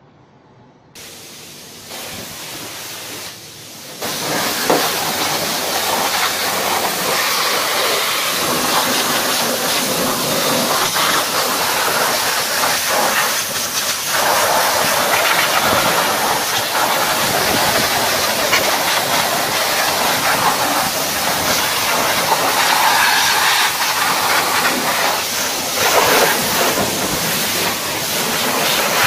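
High-pressure water jet from a car-wash lance spraying onto the engine bay, a steady loud hiss. It comes in by steps over the first few seconds and runs at full strength from about four seconds in.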